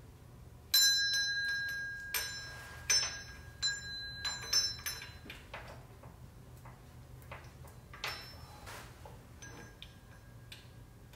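Metal hand tools clinking against engine metal. One sharp clink about a second in rings on for over a second, then lighter clinks and ticks follow irregularly for a few seconds, with one more later.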